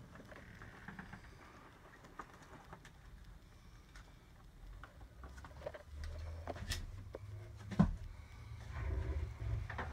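Quiet handling noise: scattered light clicks and knocks, with a low rumble from about six seconds in and one sharp click, the loudest sound, about eight seconds in.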